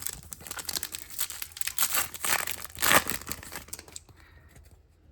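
Foil wrapper of a trading-card pack being torn open and crinkled: a dense crackling that stops about four seconds in.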